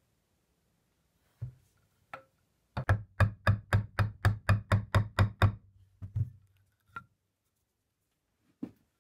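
Wooden mallet striking a chisel to chop a drilled hole in a wooden chair leg out into a mortise. A couple of single taps come first, then a quick even run of about a dozen strikes, roughly four a second, then a few scattered taps.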